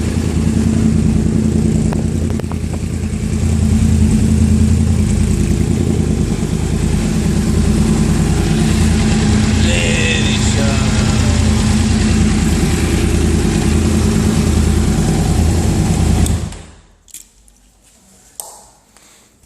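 Yamaha R1 sport bike's inline-four engine running steadily, then switched off abruptly about three-quarters of the way through, followed by a few small clicks.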